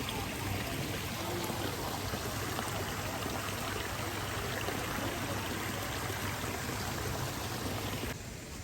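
Steady rush of flowing water, like a stream or small waterfall. It drops suddenly to a quieter background near the end.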